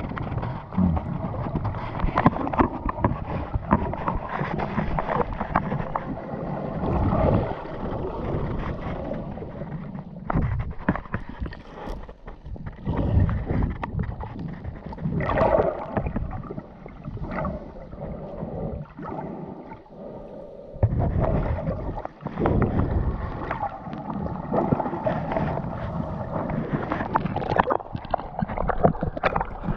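Sea waves splashing and washing in irregular surges, with wind noise on the microphone.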